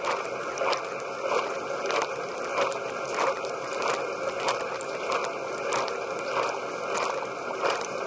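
Water jets spraying inside a running dishwasher, hissing and splashing against the racks, the walls and the camera. The spray comes in regular surges about every two-thirds of a second as the rotating spray arm sweeps past.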